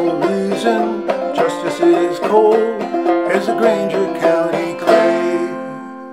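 1903 Fairbanks Whyte Laydie #2 banjo with a pie-plate resonator, played clawhammer style in F tuning (fDGCD): the closing bars of the tune. About five seconds in it ends on a final chord that rings and fades away.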